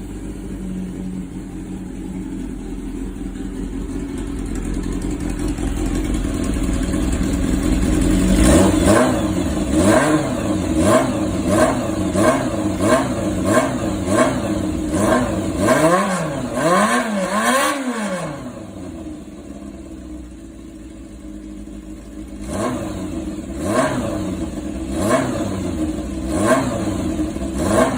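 Honda CBR400F's air-cooled inline-four idling steadily, then blipped with the throttle over and over, about once a second, each rev rising and falling back. It settles to a quieter idle for a few seconds, then is blipped again near the end, running with no abnormal noise.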